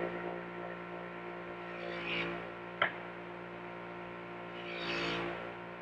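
Bench buffer's motor running with a steady hum, its stitched cloth wheel hissing briefly twice as the knife handle is pressed against it, with one sharp click near the middle.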